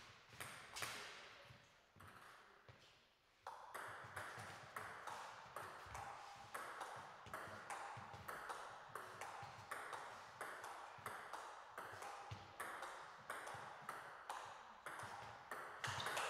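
Table tennis ball struck back and forth in a long rally: sharp clicks of celluloid ball on bat and table, about two a second. The rally starts about three and a half seconds in, after a short pause.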